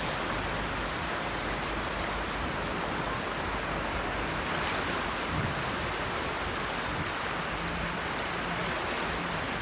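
Steady wash of small Baltic Sea waves breaking on a sandy shore.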